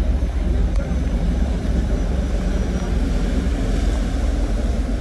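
Steady low drone of a ferry's engines heard from on deck, mixed with rushing wind and water noise.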